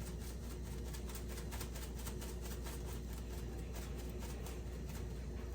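Chopped onion sautéing in olive oil in a large pot, a steady sizzle full of fine crackles, over a low steady hum.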